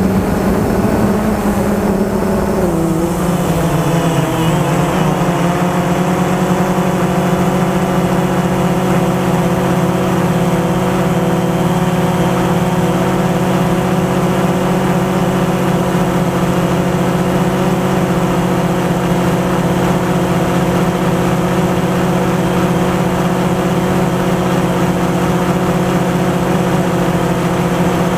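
DJI Phantom 2 quadcopter's electric motors and propellers whining in flight, heard from the camera mounted on the drone. The pitch drops over the first few seconds and then holds steady. Low rumble of strong wind on the microphone underneath.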